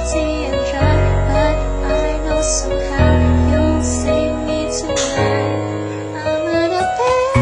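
Music: a slow pop song with piano chords over sustained bass notes that change about every two seconds, with a sung vocal line.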